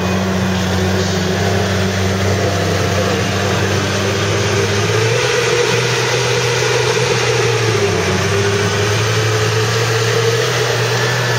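ATV engines idling steadily, with a higher note drifting slightly up and down and the low tone shifting a couple of times.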